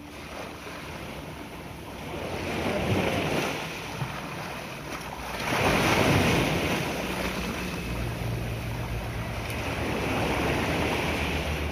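Sea waves washing and breaking against shoreline boulders, swelling loudest about three and six seconds in, with wind buffeting the microphone.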